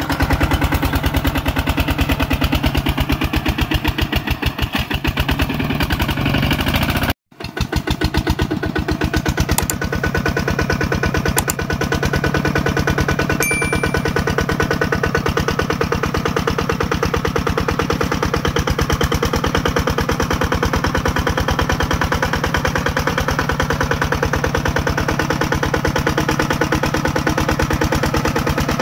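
Single-cylinder diesel engine of a Kubota RT140 walking tractor running steadily in a rapid, even firing rhythm while it pulls a loaded trailer through mud. The sound cuts out briefly about seven seconds in.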